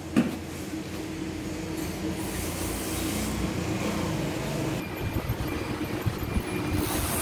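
Steady low mechanical rumble with a faint steady hum, and a single thump just after the start.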